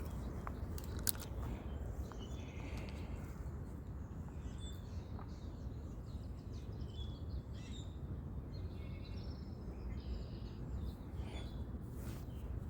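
Outdoor ambience: scattered bird chirps over a steady low rumble, with a couple of faint clicks in the first second or so.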